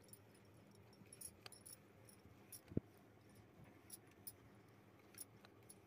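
Near silence with faint scattered clicks and rustles as wool yarn is wound around the nails of a wooden loom, and one soft low thump a little under three seconds in.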